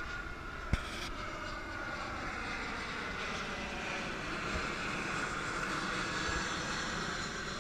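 Jet airliner passing low overhead. Its engine noise is a steady rush that grows to its loudest about six seconds in.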